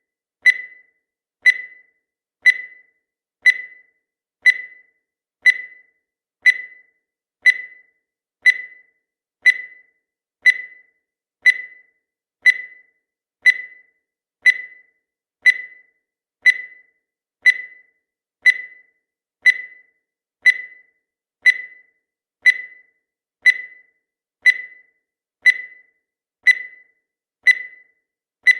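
Countdown timer's electronic beep, one per second: each a short, high tone that starts sharply and fades quickly.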